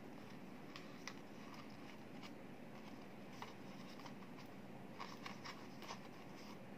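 Faint rustling and light clicks of label paper being handled in an open thermal label printer, with small scattered taps and a short cluster of them about five seconds in, over a steady low hum.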